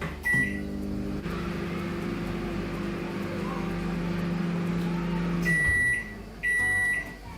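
Microwave oven heating rice. A short beep as it starts, then a steady hum that stops suddenly about five and a half seconds in, followed by two long beeps signalling the cycle is finished.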